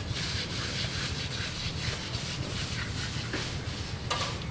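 Singed fur being scraped off a torched goat carcass's skin: a steady, rough rubbing and rasping of many quick strokes.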